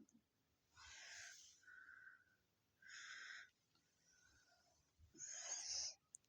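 Faint breathy whispering from a person, three short bursts about two seconds apart.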